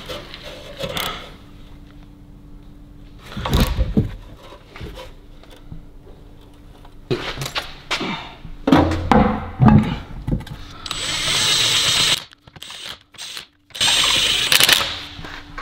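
Workshop work on a car's rear wheel hub: metal parts clank and knock, then a power tool runs in two short bursts of about a second each near the end.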